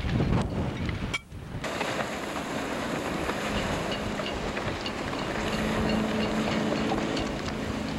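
Storm wind buffeting the camcorder microphone, a steady rumbling noise with choppy harbour water beneath it. The sound drops out briefly about a second in, and a faint steady hum comes in past halfway.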